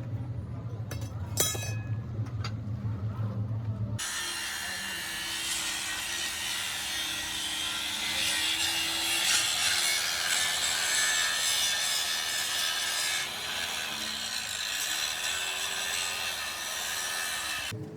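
A steady low machine hum, then after an abrupt cut about four seconds in, a power tool cutting with a loud, even hiss, sounding like sawing. Under it runs a motor tone that dips and recovers several times near the end as the load changes.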